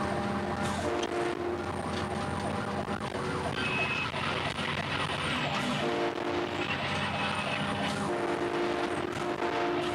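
Train horn mounted on a fire rescue truck, sounding a chord of several steady notes in long blasts: one ending about a second and a half in, another from about six to eight seconds, and one starting again near the end. A siren and the truck's road noise run underneath between the blasts.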